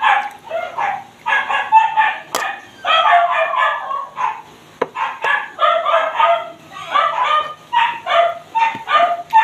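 A dog barking over and over, two to three short barks a second, with a short break about four seconds in.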